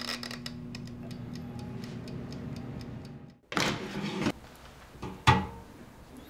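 Air fryer's mechanical timer dial ticking over the steady hum of its fan. About three and a half seconds in, the basket drawer slides out with a scrape, followed by a sharp clunk.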